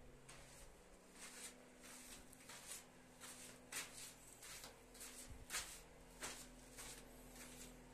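Quiet footsteps scuffing on a gritty, sandy cave floor, roughly two steps a second, over a faint steady hum.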